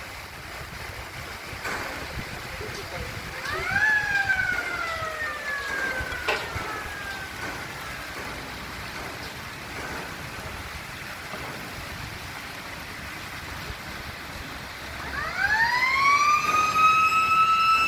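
A siren wailing: about four seconds in its pitch rises quickly and then slides slowly back down, and near the end it winds up again and holds a steady high note. Fountain water splashes steadily underneath.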